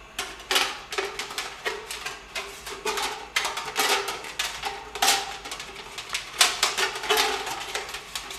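A 4-inch dryer vent being pulled up a brick wall on a wire, giving off an irregular run of clattering knocks, scrapes and short metallic rattles.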